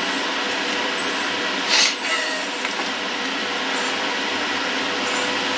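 A steady whooshing noise with a faint hum, like a kitchen extractor fan running, with a brief louder hiss about two seconds in.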